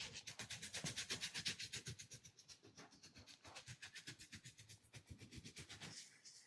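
Fast, even rubbing or scratching strokes of a hand massage on skin or hair, about seven a second, loudest in the first two seconds and then fainter.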